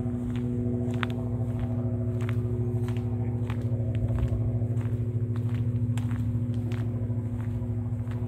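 A motorcycle engine idling steadily at an even pitch, with regular footsteps about two a second over it.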